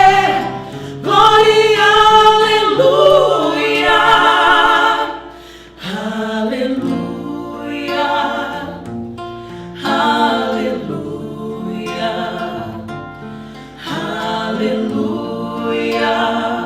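Vocal trio singing a Portuguese worship song in harmony, with held notes with vibrato. It is loud for the first six seconds or so, then softer, over a sustained low accompaniment.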